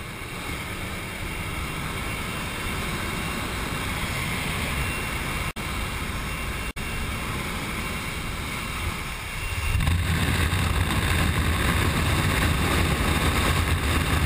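Jump aircraft's engine and the rush of wind through the open door, heard from inside the cabin: a steady noise that drops out for an instant twice and grows louder and deeper about ten seconds in.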